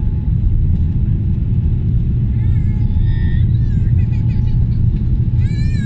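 Steady low rumble of an airliner's jet engines and airflow, heard inside the passenger cabin during the climb after takeoff. A high-pitched voice in the cabin is heard briefly a few times.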